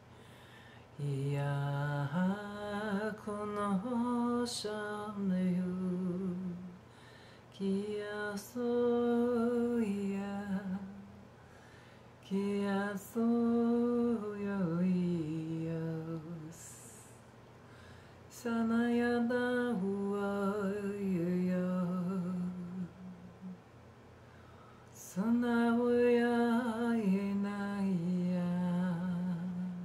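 A woman singing a slow, wordless chant in five long phrases of held notes that step up and down, with short pauses between them.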